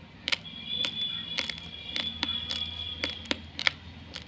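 Uncooked Daawat rice being chewed, a string of sharp crunches about three a second. A steady high tone runs behind the crunching from about half a second in until past three seconds.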